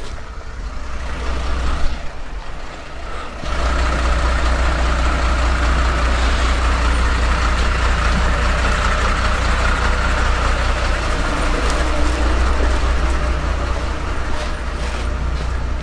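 Delivery truck's engine running steadily at close range, its low hum coming in loud about three and a half seconds in and holding level.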